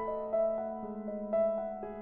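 Slow, soft background piano music: a gentle melody of single notes, about two a second, over long held bass notes.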